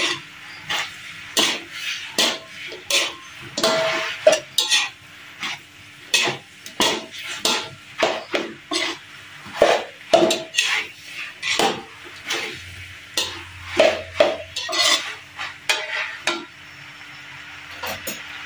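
Two metal spatulas scraping and clanking against a metal wok, one to two strokes a second, as fried noodles are stir-fried and tossed, with frying sizzle underneath. The clatter stops near the end, leaving the steady sizzle.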